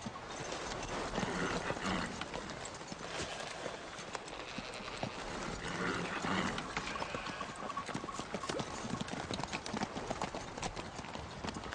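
Horse's hooves clip-clopping on hard, stony ground as the horse is ridden away at a gallop.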